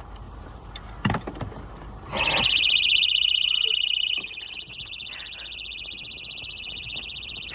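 A few sharp clicks, then about two seconds in a Birdie personal safety alarm starts sounding: a shrill, rapidly pulsing high tone. It is loudest for about two seconds, then keeps going more quietly. It has been set off by accident inside a purse, and its top is off.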